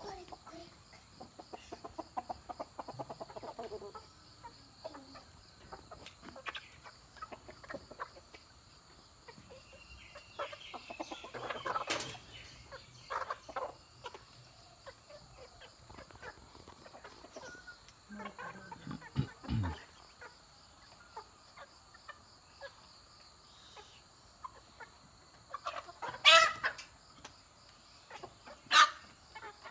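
A small flock of domestic chickens clucking in short, scattered calls, with a few louder calls near the end.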